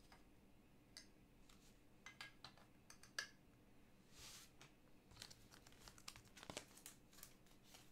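Faint rustling, clicking and sliding of trading cards and plastic card sleeves being handled, with a longer swish about four seconds in.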